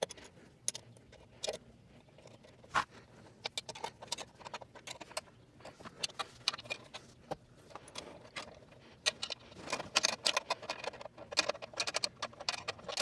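Steel combination wrenches clinking on the exhaust flange nuts and against each other as the muffler-to-catalytic-converter joint is tightened: scattered metallic clicks that thicken into quick clusters from about nine seconds in.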